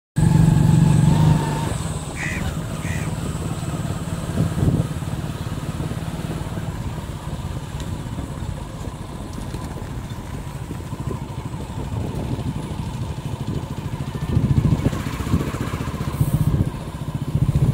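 Motorcycle engine running at low road speed, heard from the rider's seat, with a fine even firing beat. It is louder in the first second and again near the end as the throttle opens.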